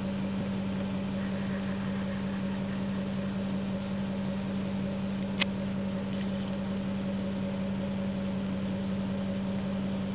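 Vehicle engine idling with a steady hum, heard from the car the deer are being filmed from, with one short click about five seconds in.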